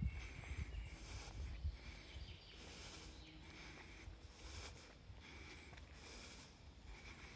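Faint footsteps swishing through dry grass at an even walking pace, about one step a second, over low outdoor background noise.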